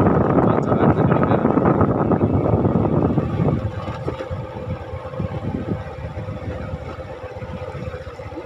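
Motorcycle ridden along a path, its engine mixed with a loud rushing noise on the microphone. The noise drops sharply about three and a half seconds in, as if the bike slows.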